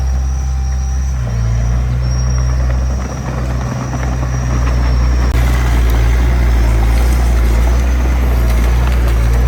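D20P bulldozer's diesel engine running steadily, getting a little louder with more clatter and hiss from about five seconds in as it works harder.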